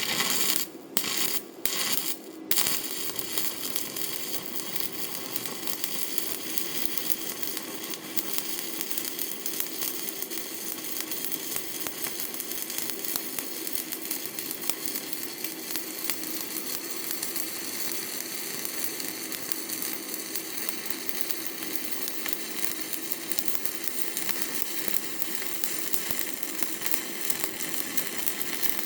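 Stick-welding (SMAW) arc burning a 1/8-inch 7018 electrode at about 110 amps. The arc catches and breaks several times in the first couple of seconds, then settles into a steady crackling sizzle as the bead is run.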